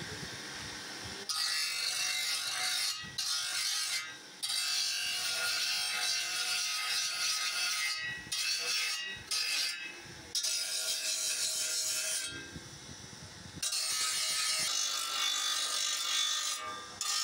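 A cast brass horse figure is pressed against a spinning abrasive wheel on a bench motor. It gives a high, hissy grinding sound that starts and stops several times as the piece is pushed onto the wheel and lifted off, with short, quieter breaks between.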